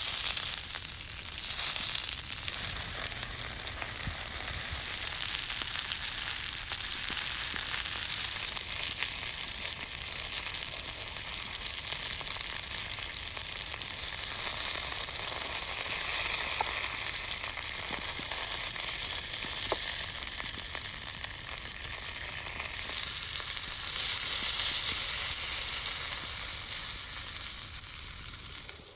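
Steak and vegetables frying in butter in a large pan over a fire: a steady crackling sizzle, a little louder near the end.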